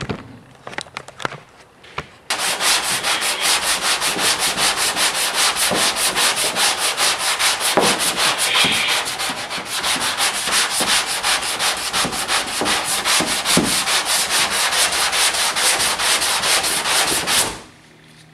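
Sandpaper on a hand sanding block rubbed back and forth across the painted door panel of a 1994 Ford Mustang GT: block sanding the bodywork, a steady run of quick, rhythmic scraping strokes. It starts about two seconds in after a few light knocks and stops abruptly shortly before the end.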